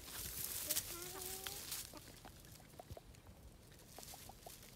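Dry twigs and leaf litter rustling and crackling as a baby macaque pushes through brush and walks over dry stalks, busiest in the first couple of seconds, then sparse small crackles. A faint short call comes about a second in.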